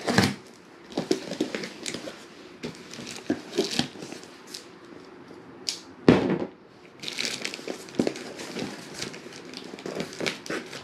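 A cardboard shipping box being opened by hand: a utility knife slitting the packing tape, then the flaps torn and pulled open and the plastic-wrapped box inside handled, with irregular scraping, tearing and rustling of cardboard and plastic. Two sharp, loud tearing sounds stand out, one at the start and one about six seconds in.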